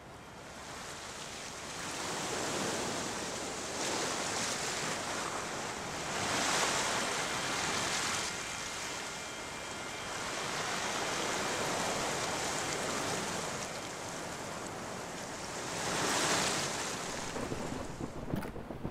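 Sea waves washing in over a shingle groyne and pebble shore. Each surge swells and falls away every few seconds.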